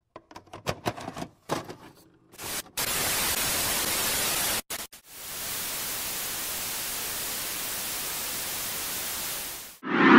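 Analog TV static: a few scattered crackles and clicks, then loud white-noise hiss that drops out for a moment and comes back steady. The hiss cuts off suddenly near the end.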